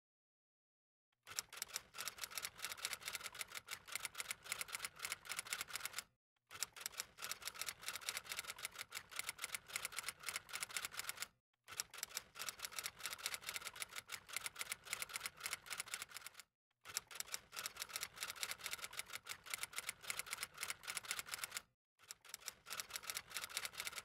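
Manual typewriter keys striking in rapid, steady typing, in runs of about five seconds broken by short silent gaps.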